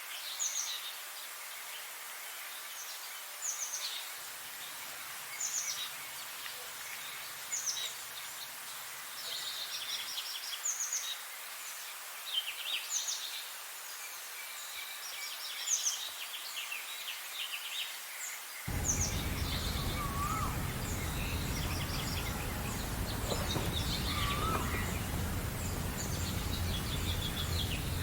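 Small songbirds chirping and trilling in short high phrases, repeatedly, over a steady background hiss. About two-thirds of the way through a low rumble comes in abruptly and stays, and a few lower, gliding calls are heard over it.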